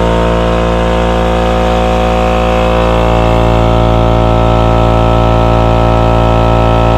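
Small 2-horsepower electric air compressor running steadily and loudly, building pressure in its tank, then cutting off suddenly right at the end.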